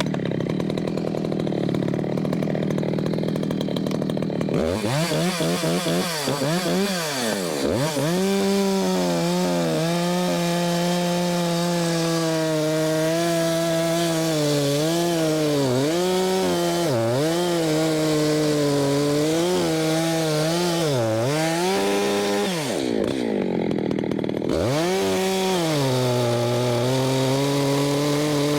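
Two-stroke Husqvarna chainsaw idling for about four seconds, then revved up and cutting into an ash round. The engine pitch dips and recovers again and again as the chain bites into the wood under load.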